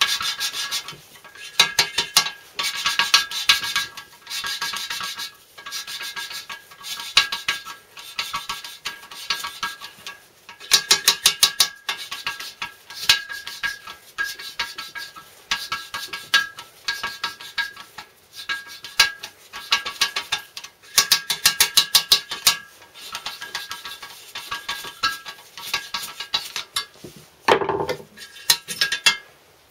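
Exhaust valve of a 1929 Lister Junior A-type engine being hand-lapped into its seat with fine grinding paste: gritty rasping in short, quick back-and-forth bouts, repeated every second or two.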